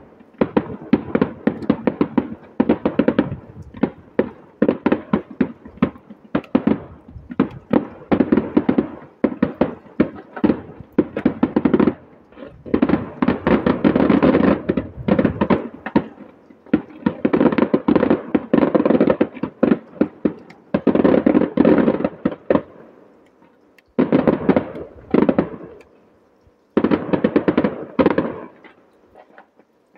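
Firework display firing in rapid volleys: dense runs of bangs and crackles from bursting shells and cakes, a few seconds at a time with brief lulls between. The gaps lengthen in the last third, and the firing stops just before the end.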